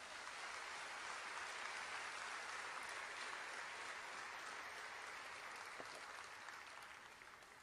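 Audience applauding steadily, faint, fading out near the end.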